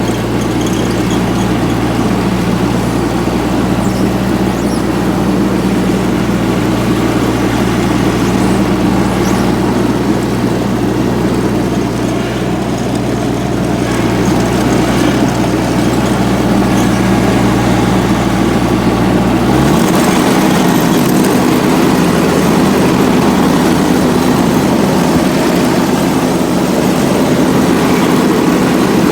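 Kubota G1700 ride-on mower's diesel engine running steadily while cutting grass. About two-thirds of the way through, the low engine note changes abruptly and the sound gets a little louder.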